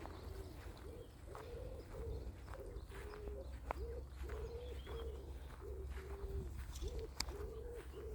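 Pigeons cooing: a steady run of low, soft notes, about two a second, over a low rumble.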